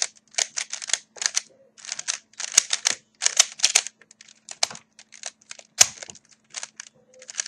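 A plastic 3x3 Rubik's Cube being turned quickly and repeatedly, its layers clicking and clacking in rapid, irregular bursts as the same corner algorithm is run over and over.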